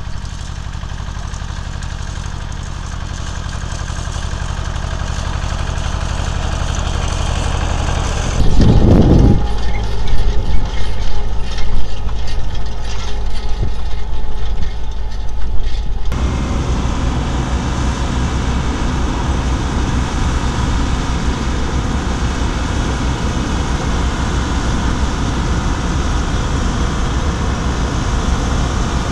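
Farm machine engines at work in three cuts. First an Ursus tractor pulling a hay rake, a steady low drone that grows louder as it comes closer. From about 8 seconds in, a Fendt tractor pulling a harrow, louder and uneven with many clicks and knocks. From about 16 seconds in, a Claas Consul combine harvester running steadily while it harvests.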